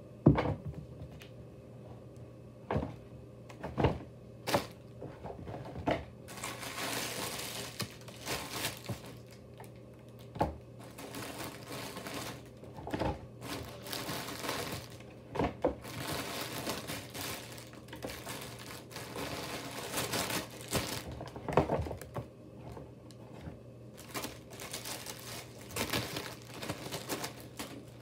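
Rustling and crinkling of a bag being rummaged through, broken by scattered knocks and taps as things inside are handled; the sharpest knock comes right at the start.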